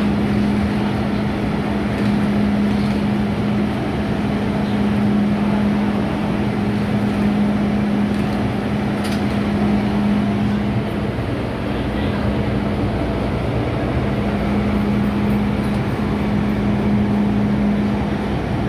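Steady hum inside an MTR M-Train standing at a station platform, with a steady low drone that drops out for a few seconds about eleven seconds in and then returns.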